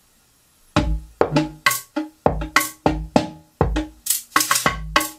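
Electronic drum loop made in the ROLI Noise app playing back: deep kick thumps and short pitched percussion hits in a steady beat, starting just under a second in.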